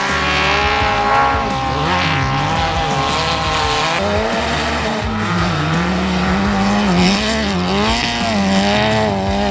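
Off-road race car engines revving and running hard, with pitch that wavers up and down, mixed over a rock music soundtrack with a steady bass line.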